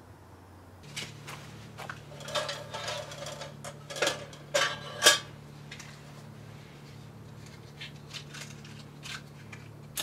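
Clinks, clicks and a few short squeaky scrapes of hands handling a candle and a metal-and-glass lantern, busiest in the first half, with the loudest clink just after the halfway point, then a sharp click near the end as a flame is struck to light the candle. A low steady hum runs underneath.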